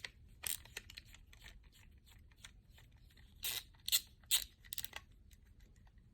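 Sharp clicks and light scraping of hands handling parts inside an opened all-in-one computer, with a cluster of louder clicks from about three and a half to five seconds in.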